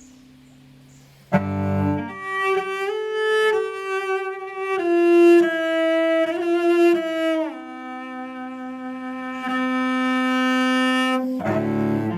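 Solo cello playing a slow melody. A faint fading note gives way to a sudden loud low chord about a second in, then a series of held notes, one long sustained note, and another low chord near the end.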